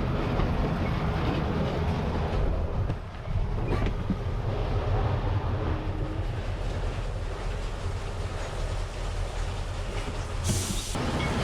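Heavy truck's diesel engine running steadily as the truck is moved forward a little, with a continuous low hum and mechanical noise. A brief hiss comes near the end.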